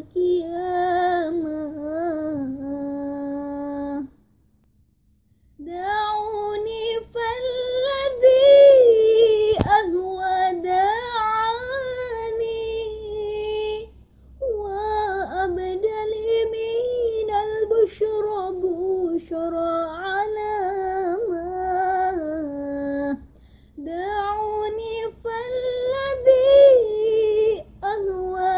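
A girl singing a sholawat (Islamic devotional song) solo and unaccompanied, one voice in long ornamented phrases, breaking off for breath between them, with the longest pause about four seconds in.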